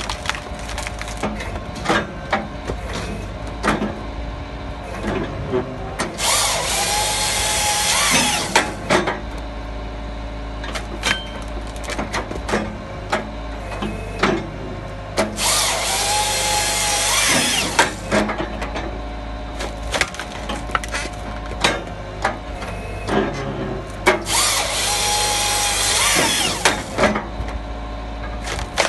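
Halverson HWP-140 firewood processor head on an excavator cutting firewood: its saw bar cuts through a log three times, each cut about three seconds long and about nine seconds apart. Between the cuts come repeated sharp knocks and clatter of wood being split and falling, over the steady low running of the excavator's engine.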